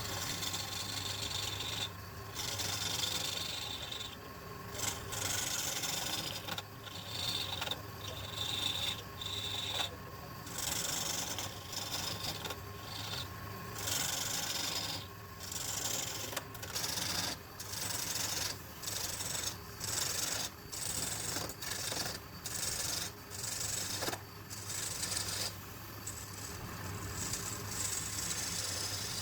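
Woodturning lathe running with a steady hum while the spinning wood rasps against a hand-held tool in repeated strokes, most about a second long with short breaks between.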